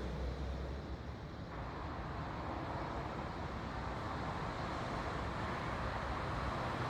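Steady outdoor background noise: a low rumble with a hiss that grows a little stronger about a second and a half in.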